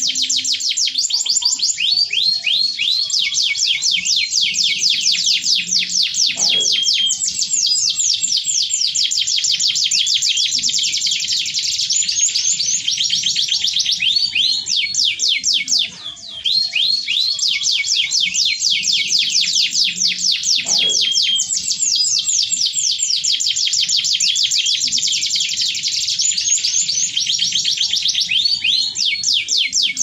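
Canary singing a long, continuous song of fast trills and rolls, rapid runs of repeated whistled notes, with one short pause about halfway through.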